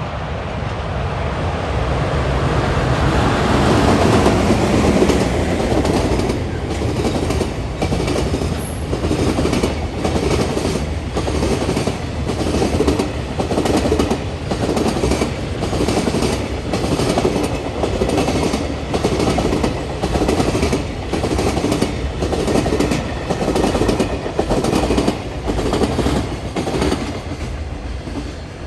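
Freight train passing through a station: the locomotive's approach builds to its loudest a few seconds in, then a long string of freight wagons rolls by with a steady, rhythmic clickety-clack of wheels over the rail joints, about one beat a second.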